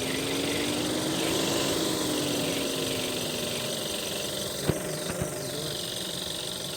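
Volkswagen 1.4 TSI (CAXA) petrol engine idling steadily. A faint tone rises and falls in pitch over the first couple of seconds, and two sharp clicks come about half a second apart, near three quarters of the way through.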